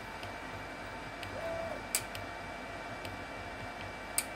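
Longer LK4 X 3D printer running its automatic bed-levelling routine: a few sharp clicks at irregular intervals from the levelling probe as it touches off around the bed, the loudest about two seconds in and near the end. There is a brief motor whine about a second and a half in as the bed moves, over a faint steady hum.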